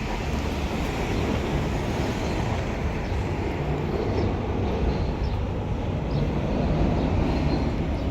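Steady city street noise: a constant low rumble of traffic.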